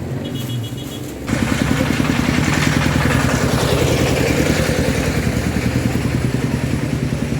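A small engine running, getting louder about a second in and then holding with a fast pulsing beat.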